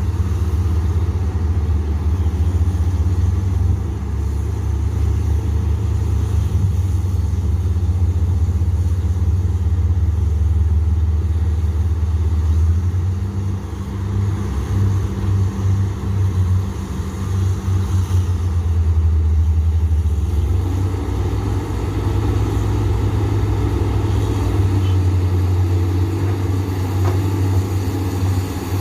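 Komatsu PC200 hydraulic excavator's diesel engine running steadily under working load, with a deep drone. Its sound dips briefly about halfway through and shifts in tone again later.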